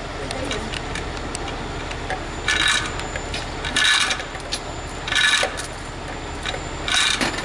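Steel tow chain rattling and clinking in four short bursts, about a second and a half apart, as it is pulled through a pickup's wheel, over the steady low running of the tow truck's engine.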